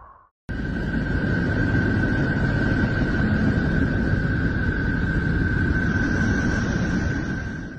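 NASA space-mission audio, played back as a 'planet sound': a steady rushing noise with a constant high tone above it. It starts suddenly about half a second in and fades out near the end.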